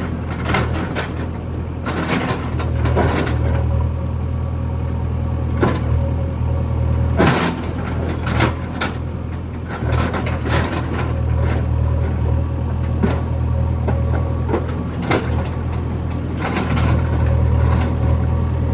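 JCB backhoe loader's diesel engine running while it digs. It makes a steady low drone that swells and eases several times, with scattered sharp knocks and clanks from the working machine.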